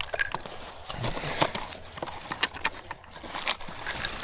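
Irregular clicks and knocks of shotguns being reloaded, with shells handled and actions worked, mixed with light rustling.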